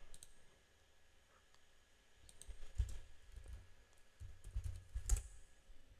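Faint computer keyboard typing and mouse clicks in two short runs, one about two seconds in and one about four seconds in, with the sharpest click near the end of the second run.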